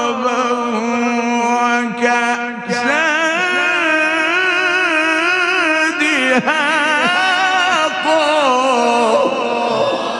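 A man recites the Quran in the melodic mujawwad style, holding long ornamented notes with a wavering, gliding pitch. There are short breaks about two seconds in and again around six seconds in, and the last note fades near the end.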